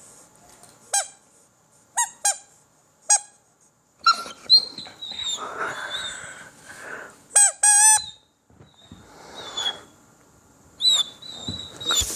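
A dog's rubber squeaky toy being squeezed: four short, sharp squeaks in the first few seconds, then two longer wavering squeaks in the middle and another near the end, with rustling between.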